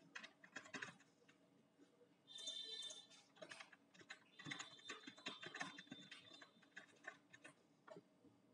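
Faint typing on a computer keyboard: irregular clicks of individual keys, with a brief rasping noise about two and a half seconds in.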